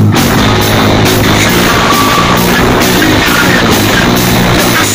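Live rock band playing loudly and without a break: electric guitar, bass guitar and drum kit.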